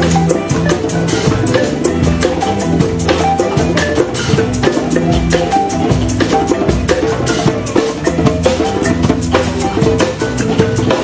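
Band playing Bubu music, Sierra Leone's Temne dance style: busy, fast percussion over a steady bass line and melody.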